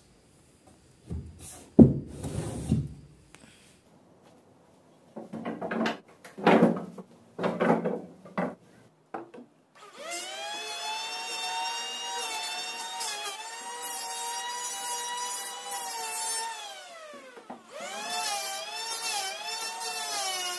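A few knocks and short bursts of handling noise, then a circular saw motor starts up with a steady whine, holds for about seven seconds and winds down. It starts again soon after, its pitch wavering up and down.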